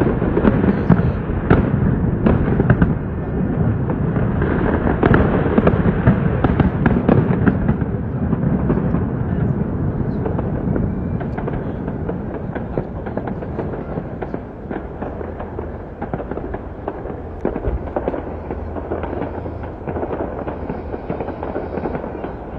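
Fireworks display going off in a rapid, continuous run of bangs and crackles. It is busiest in the first half and eases off somewhat toward the end.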